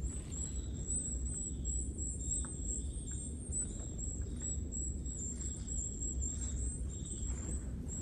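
Forest ambience: high, thin bird calls come and go over a low, steady rumble, with a few faint ticks.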